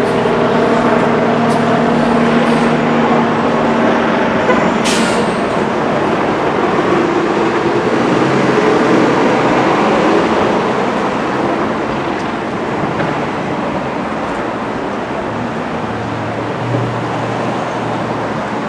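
Steady motor-vehicle traffic noise with a low engine hum, and a short hiss about five seconds in.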